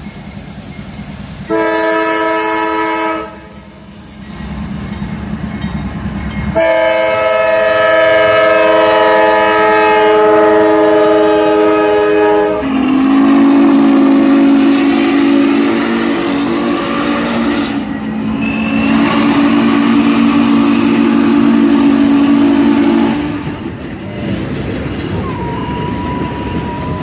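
Norfolk & Western 611's chime steam whistle blowing a short blast, then a long one that drops in pitch about halfway through as the locomotive passes. The long blast stops near the end, leaving the rumble of the train's cars rolling by.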